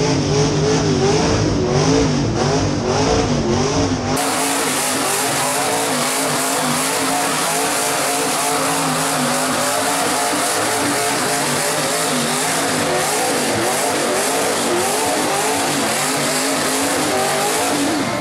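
Mega mud truck's rear-mounted big-block engine running hard, its pitch wavering up and down as the throttle is worked. About four seconds in the sound changes abruptly, losing its deep bottom end.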